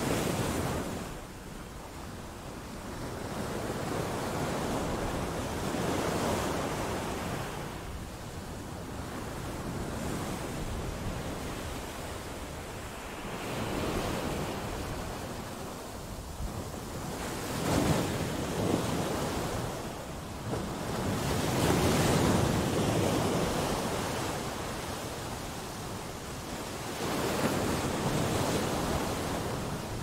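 Ocean waves breaking against rocks. The rush of surf swells and fades in slow surges every few seconds and is loudest about two-thirds of the way through.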